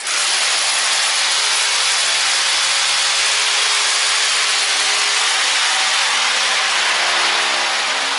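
Power drill with a core bit cutting a round hole into a plastered and tiled wall: a steady loud grinding hiss over the motor's whine. The core bit has holes drilled around its rim to make it cut better.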